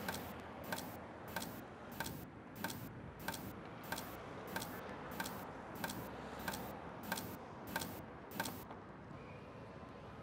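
Clock ticking steadily, about three ticks every two seconds, over faint room hiss; the ticking stops about eight and a half seconds in.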